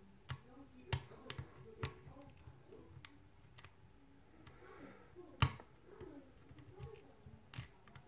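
Lock pick working the pins of a brass mortise cylinder under a tension wrench: scattered faint metallic clicks and ticks, with one sharper click about five and a half seconds in.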